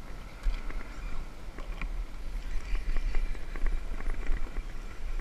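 Fishing reel drag clicking in quick, irregular ticks as a hooked false albacore pulls line, over a low wind rumble on the microphone.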